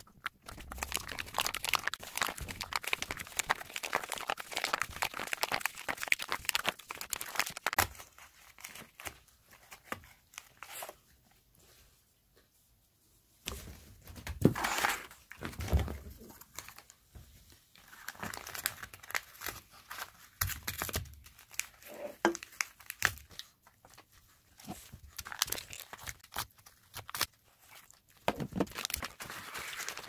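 Paper cups being crumpled and torn by hand: dense crinkling and crackling. It stops for a couple of seconds near the middle, where a few heavier knocks come, then resumes.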